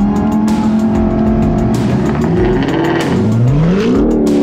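A Corvette's V8 engine accelerating hard past the camera. The engine note holds steady, dips about two and a half seconds in, then climbs steeply as it revs up.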